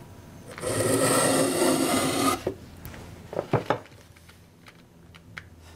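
Hand plane taking one long shaving stroke of about a second and a half along the dovetail tongue of a wooden board, then a few sharp knocks of the plane against the wood.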